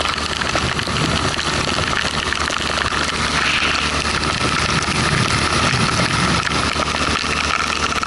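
Heavy downpour pelting an inflatable boat and the river, a steady dense hiss and crackle, with an outboard motor running steadily underneath.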